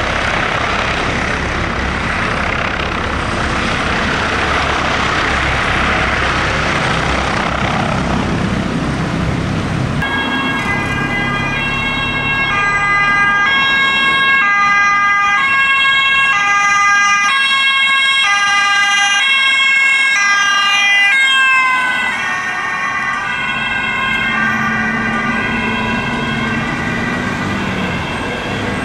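Ambulance helicopter, an Airbus H145, flying low with steady rotor and turbine noise. About ten seconds in it gives way to a Volkswagen Transporter ambulance's two-tone siren, alternating between two pitches about once a second. About two-thirds of the way through, the siren's pitch drops as the ambulance passes.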